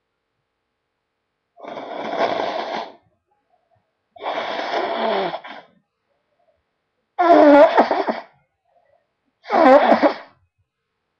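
A person blowing their runny nose in four forceful blows of about a second each, the last two louder.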